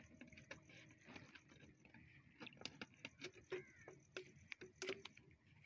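Faint, scattered bird chirps and small clicks over near silence.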